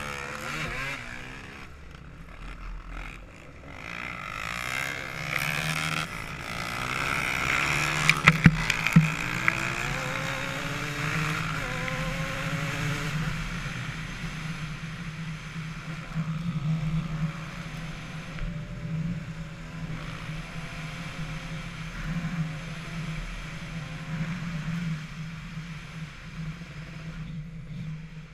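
Dirt bike engine running hard and accelerating, its pitch rising and falling through the gears, with wind rushing over the microphone. A few sharp knocks near the middle, where it is loudest.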